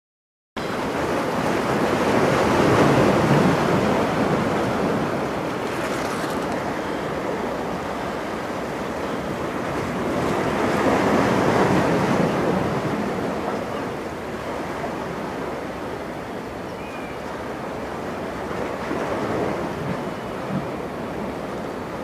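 Sea waves washing and breaking, a steady rush that swells up twice in slow surges and eases off, with wind buffeting the microphone.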